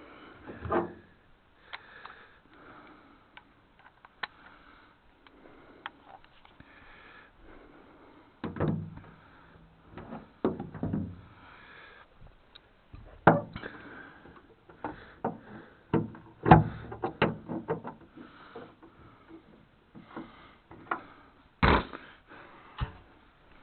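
Irregular knocks, clunks and scrapes of hands and tools working on rusted parts of an old truck, with a few sharp impacts.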